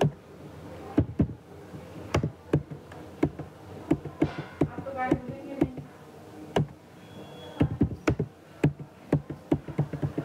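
Computer keyboard being typed on: irregular key clicks, some in quick runs.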